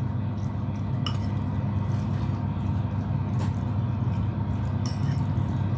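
Metal utensil stirring and mashing a soft mixture in a ceramic bowl, with a few light clinks against the bowl, over a steady low hum.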